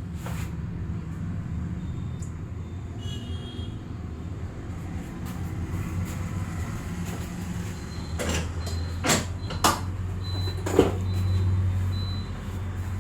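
Four sharp hand slaps of a head massage in the second half, over a steady low rumble of traffic.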